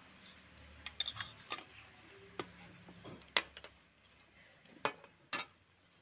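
Metal slotted spoon clinking against a steel kadai as chicken pieces are stirred and turned in it. The clinks come in an irregular series, the loudest about three and a half seconds in.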